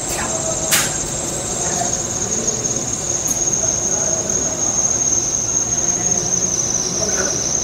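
Engine lathe running while a blade-style parting tool cuts through Delrin bar, nearing the end of the parting cut, with a steady high-pitched whine that drifts slightly lower in pitch. A single sharp click comes about a second in.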